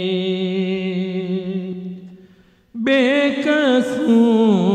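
A man chanting an Urdu marsiya (elegy) in a melodic, drawn-out style. He holds one long note that fades out a little after two seconds in, then after a brief pause starts a new phrase with wavering, ornamented pitch.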